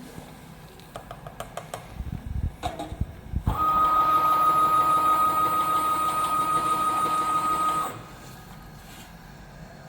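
Spice powder filling machine running a fill cycle: a few clicks and low knocks, then its motor runs with a loud steady high whine for about four seconds and stops abruptly, dispensing one dose of powder.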